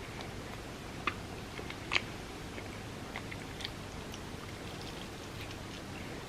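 Close-miked eating: chewing with soft, wet mouth clicks, two sharper ones about one and two seconds in.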